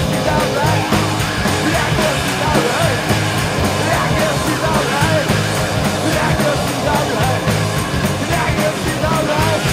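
Loud proto-punk rock band playing an instrumental passage: distorted electric guitars, bass and drums keeping a steady driving beat, with a wavering lead guitar line on top.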